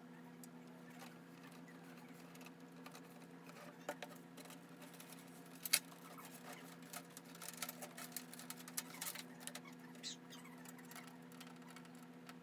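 Scattered light clicks and taps of small plastic connectors and cables being handled and plugged in during a PC build, over a steady low hum. One click about six seconds in is the loudest.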